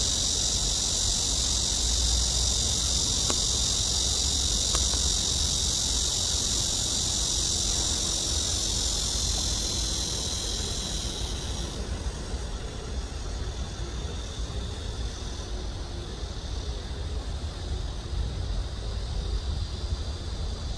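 Insects singing in a steady, high, continuous buzz that drops off abruptly about twelve seconds in, leaving fainter insect song, over a low rumble.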